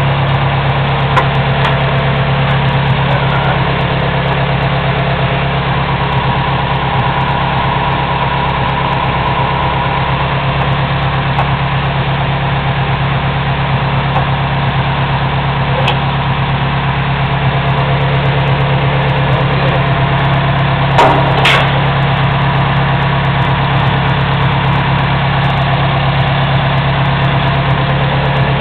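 A loud, steady mechanical drone, like a running engine, with a pair of sharp metallic knocks about two-thirds of the way through.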